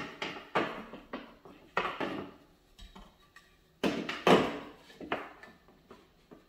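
Spirit level knocking and scraping against the wall as it is set in place and held for pencil marking: a series of irregular knocks and scrapes, loudest about four seconds in.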